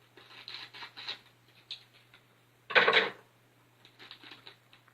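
Plastic biltong packet crinkling and rustling as it is cut open with scissors and handled, in short crackly bursts with one louder rustle near 3 s. A faint steady low hum runs underneath.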